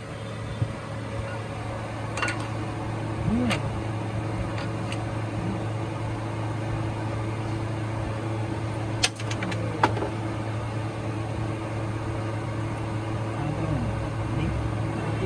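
Toyota Premio's 1ZZ four-cylinder engine running at a steady idle, an even hum, with a few sharp clicks on top: two a few seconds in and two close together near the middle.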